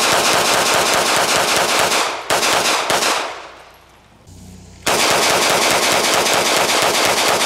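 Rapid strings of shots from a compact all-steel CZ blowback pistol: a long string, a brief one about two and a half seconds in, then after a pause another long string from about five seconds in.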